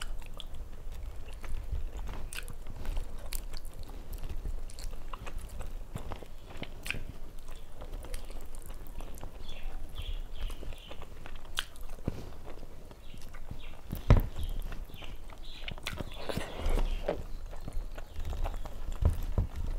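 Close-miked eating sounds: chewing with wet mouth smacks and clicks as rice and fried fish are eaten by hand, along with fingers squishing rice on the plate. A single sharp knock stands out about two thirds of the way through.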